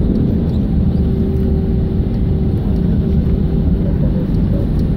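Cabin noise of an Airbus A320-200 in its landing rollout: a steady low rumble of the engines and the wheels on the runway, with a faint steady hum that fades about halfway.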